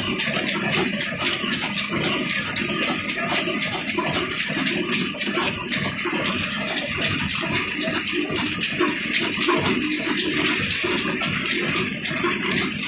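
Steady, noisy running of a mill's line-shaft machinery: two 18 HP diesel engines driving the shaft, pulleys and flat belts, a continuous din with a fast even pulse.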